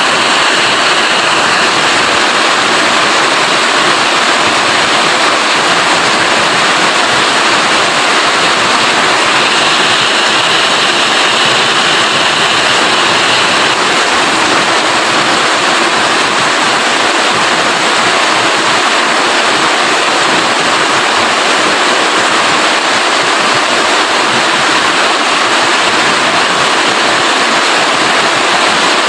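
Rain falling steadily, a dense, even hiss that never lets up.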